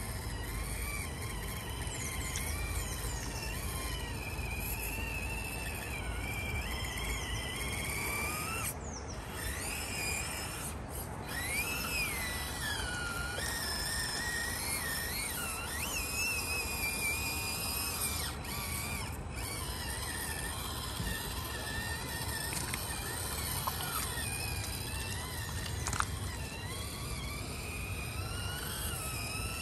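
Electric motor and gears of a 1:18-scale FMS FCX18 Chevy K10 RC crawler whining, the pitch rising and falling with the throttle.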